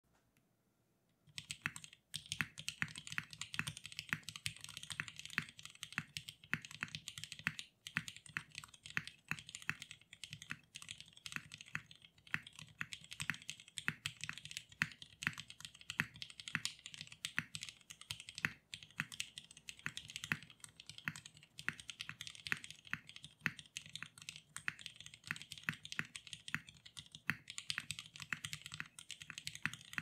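Typing on a Sanction TKL mechanical keyboard with an aluminum plate, lubed and filmed vintage Cherry MX Black linear switches and DCS-profile keycaps: a steady run of fast keystrokes that begins about a second in.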